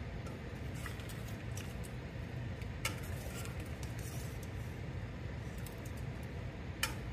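Metal ladle stirring a thin, watery vegetable kurma in a pressure cooker: soft wet swishing with light clinks of the ladle against the pot, the sharpest about three seconds in and near the end, over a steady low hum.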